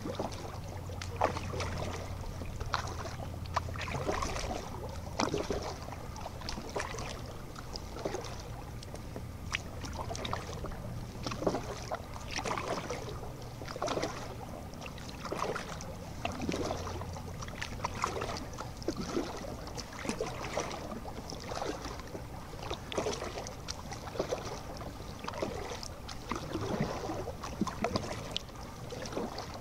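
Kayak paddle blades dipping and splashing in calm water, a stroke about every second or so. A low steady hum underlies the first half and stops about halfway through.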